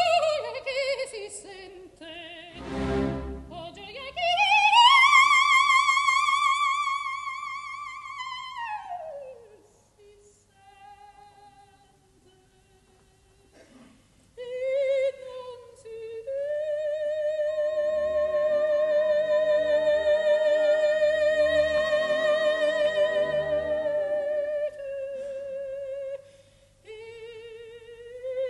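Operatic coloratura soprano singing with orchestra: a long high note with wide vibrato slides down and fades into a very quiet stretch of faint, thin notes. About fifteen seconds in, she holds another long vibrato note for several seconds over soft orchestral chords.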